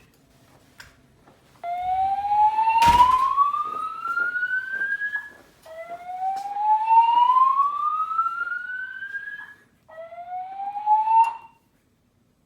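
An EST-3 voice-evacuation fire alarm system sounds a whoop tone through its speakers, a slowly rising sweep repeated three times. The third sweep cuts off suddenly after about a second and a half. A sharp click sounds about three seconds in.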